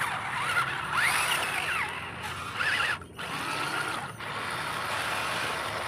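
Small electric motors and gearboxes of toy RC crawler trucks whining, rising and falling in pitch with the throttle, as the trucks churn through shallow muddy water.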